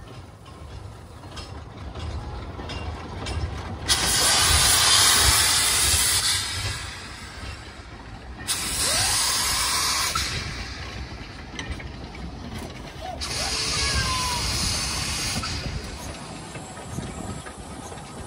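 Narrow-gauge steam locomotive hissing steam in three loud bursts of two to three seconds each, over the low rumble of the train running.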